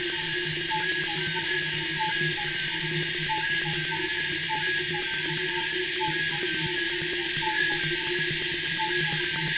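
Electronically processed recording of crickets: a dense, steady hiss, with short chirps repeating over it and a low pulsing hum beneath.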